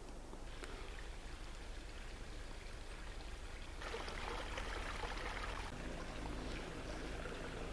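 Small woodland stream trickling through a marshy channel, growing louder about four seconds in.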